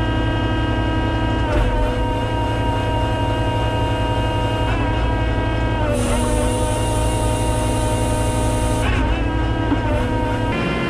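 Kubota SVL95-2 compact track loader's diesel engine and hydraulics running steadily at high revs. The pitch dips briefly several times and sags for about three seconds in the middle, with a high hiss added, as the cold planer's side-shift hydraulics take load.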